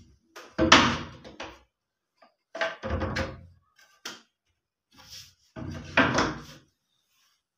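Cordless drill run in short bursts, with knocks on the wooden wardrobe door, as a door handle is screwed on; about five separate bursts, the loudest about a second in.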